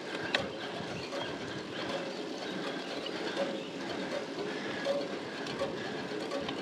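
Road bike climbing a steep grade under hard pedalling: a short rhythmic sound repeats about twice a second in time with the pedal strokes, over a steady hiss of tyres and moving air.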